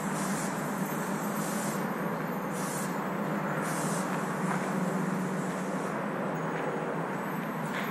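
Aerosol spray-paint can hissing in four short bursts, about one a second, over the first four seconds, over a steady droning background noise.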